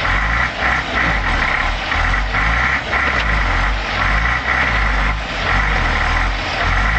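Old Volvo Viking army truck's diesel engine running steadily, loud and low-pitched.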